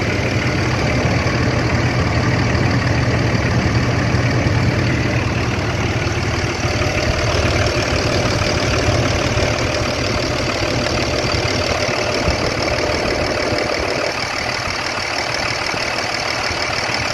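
Truck engine idling steadily after its first startup on fresh oil treated with NMF friction-reducing additive, the additive still circulating.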